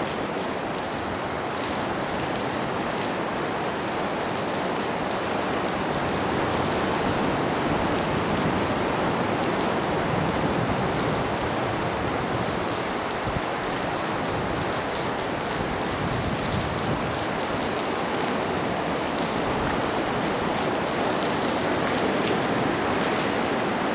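Steady rushing of water: an even hiss with no breaks or rhythm.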